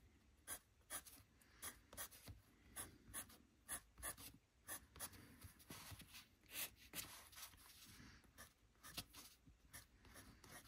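Black pastel pencil scratching faintly on sketchbook paper in short, quick shading strokes, about two or three a second.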